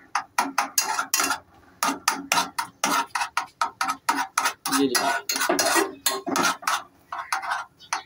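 Metal spoon scraping and clinking against the inside of a stainless steel pot, stirring a sticky ground-bait paste as it heats on the stove, in quick repeated strokes several times a second.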